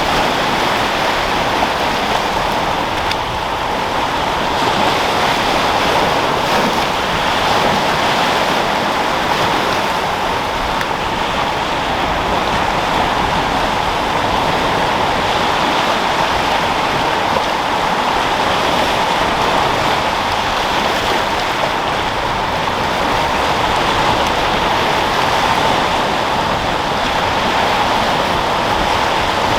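Sea surf and wind: a steady, rushing wash of rolling waves that swells and eases gently in loudness.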